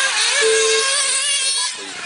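1/8-scale nitro RC buggy engines racing, a high-pitched whine that rises and falls in pitch as the cars speed up and brake.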